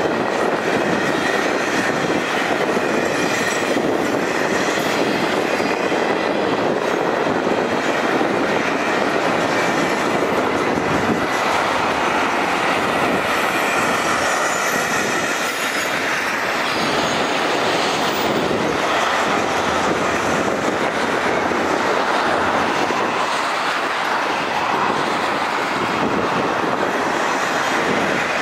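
Double-stack container train's well cars rolling past: a steady rumble and clatter of steel wheels on the rails, with a faint thin squeal from the wheels.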